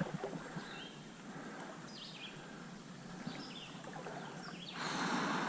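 Small birds chirping, a scatter of short, quick calls over a soft outdoor hiss, with a rush of noise lasting about a second near the end.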